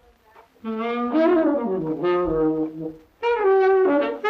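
Saxophone playing a melody from an old tape recording, in two phrases with a short break about three seconds in. The tape hiss is largely stripped out by spectral denoising, which leaves a little musical-noise artifacting.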